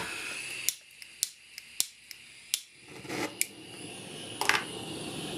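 A gas soldering torch being lit: four sharp igniter clicks about half a second apart, then the flame catching about halfway through and hissing steadily, ready to heat hard solder paste on silver rings.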